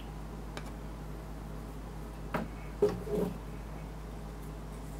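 Light handling clicks and knocks from a KC84 keyboard's PCB and switch plate as they are pulled apart and set down. There is a small knock a little past two seconds in, then a sharper click and a short rattle of knocks near three seconds.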